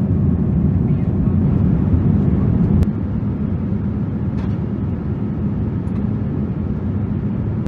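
Steady, low-pitched cabin noise of a Boeing 787-9 airliner in cruise, the engines and airflow heard from inside the economy cabin. It drops slightly in level with a faint click a little under three seconds in.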